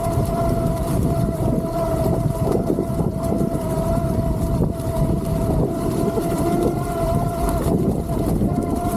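Himiway D7 e-bike's 1000 W hub motor whining at a steady pitch under pedal assist, over a loud low rumble of riding noise.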